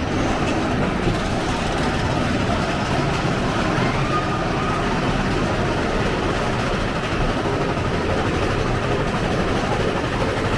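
Big Thunder Mountain Railroad mine-train roller coaster running on its track, a steady rumble and rattle heard from a seat on the train.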